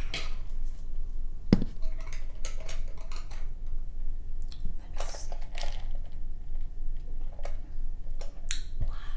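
Dishes and utensils clinking and knocking as tableware is handled on a table, a scattering of short clicks with one sharper knock about a second and a half in.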